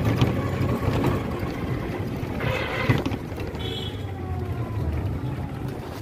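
Riding in an open-sided electric rickshaw (toto): steady low road rumble with wind on the microphone. A brief louder rush comes a little before halfway, and a short high-pitched tone just after.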